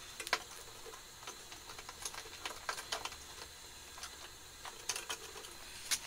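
Scattered light clicks and metallic taps at uneven spacing, about a dozen, from hand tools and metal parts being worked at a snow blower's belt cover bolts. The sharpest clicks come about a third of a second in and near the end.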